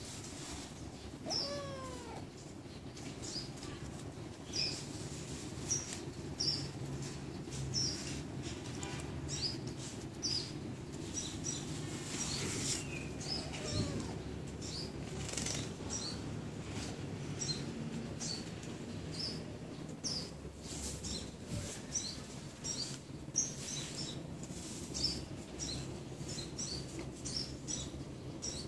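A small kitten meows briefly, once about a second and a half in and again about halfway through. Short, high-pitched chirps repeat every second or so throughout, over a low, steady hum.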